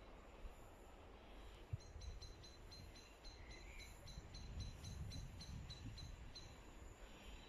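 A small bird repeats a short, high, falling chirp about four times a second for several seconds, starting about two seconds in, over a faint low rumble.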